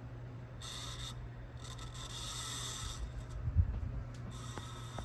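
1986 Casablanca Zephyr ceiling fan running at speed: a steady motor hum with a rubbing, rasping noise that comes and goes. The owner takes the noise for worn bearings. A low thump comes about three and a half seconds in.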